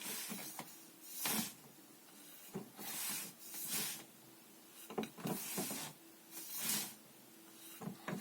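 Short hissing whooshes, roughly one every second or so, with light slaps and taps in between: the movement noise of a Wing Chun partner hand drill, with slapping blocks and strikes.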